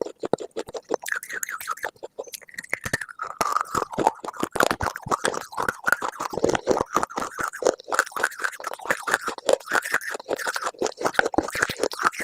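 Close-miked crunchy chewing: rapid, dense crackling bites and crunches, continuous throughout.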